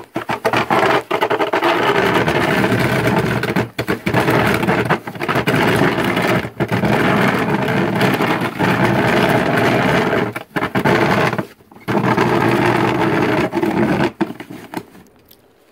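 Walk-behind lawnmower's small petrol engine running steadily, with several brief breaks.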